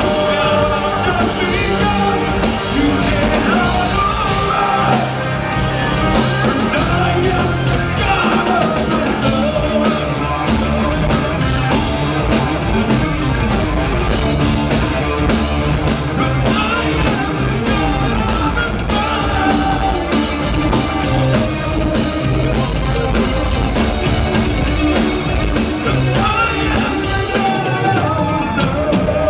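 A rock band playing loud and live, heard from the crowd: pounding drums, heavy bass, guitar and keyboards, with a singing voice over the top.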